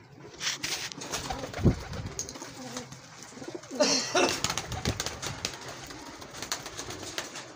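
A flock of Kasuri pigeons cooing, several low coos, with bursts of wing flapping and scuffling.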